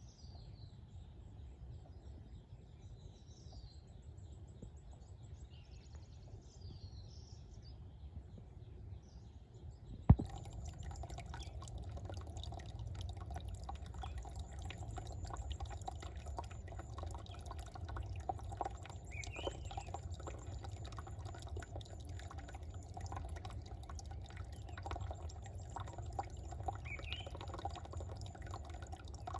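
Small birds chirping over a low background hum, then after a sharp click about ten seconds in, water trickling and splashing steadily, with a couple more brief bird chirps.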